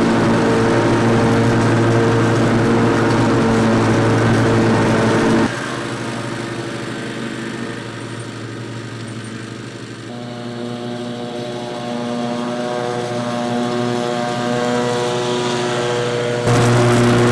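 Zero-turn riding lawn mower engine running steadily. About five seconds in the sound drops abruptly to a quieter hum, and near the end it jumps back to full level.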